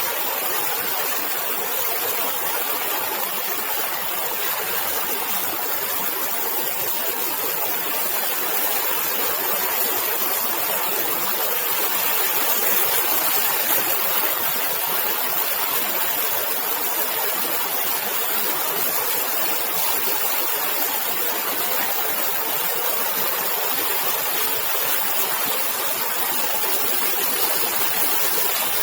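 Steady, even hiss of workshop background noise, with no machine rhythm, tones or knocks standing out.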